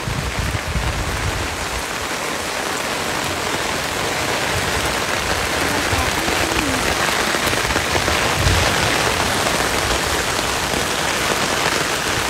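Heavy rain falling steadily, an even hiss of downpour on the flooded street.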